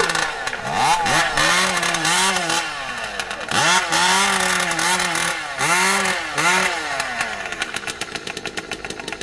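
Modified racing chainsaw engines revved in repeated short bursts, each rising and falling in pitch, then settling near the end into a fast, rattling idle: the saws being warmed up just before a chainsaw race.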